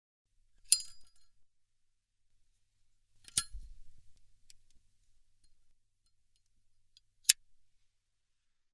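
Zippo-style windproof metal lighter in use: a sharp metallic clink with a brief ring about a second in, a second strike at about three and a half seconds followed by a low, uneven rustle for a couple of seconds, and one sharp short click near the end.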